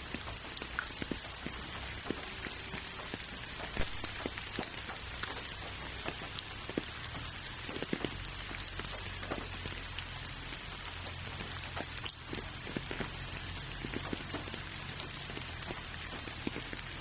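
Steady rain falling: a constant hiss dotted with many sharp ticks of individual drops, over a low steady rumble.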